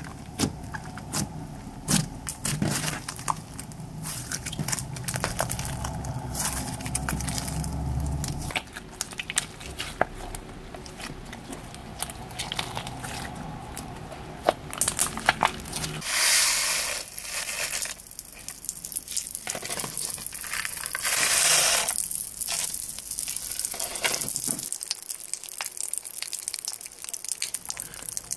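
Slime being pressed and squeezed by hand, including dark slime flecked with gold foil: many small sticky pops and clicks, with louder squishing swells in the second half.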